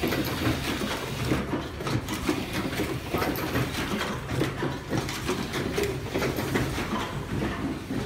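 YH009a automatic plug-insert crimping machine running, its pneumatic cylinders and crimping mechanisms making a steady rattle of quick clicks and knocks.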